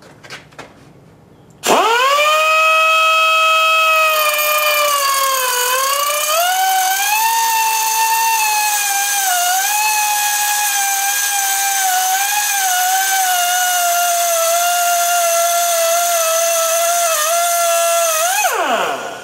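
Air die grinder with a small diamond cutoff wheel spinning up to a high whine about two seconds in, then cutting into steel angle, its pitch dipping and wavering as the wheel loads up in the cut. It spins down near the end.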